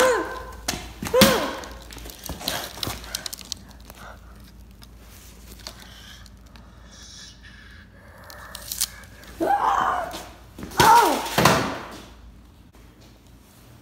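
A few heavy thuds and knocks, with short shouted or gasping vocal sounds around them, loudest about a second in and again from about nine and a half to eleven and a half seconds in.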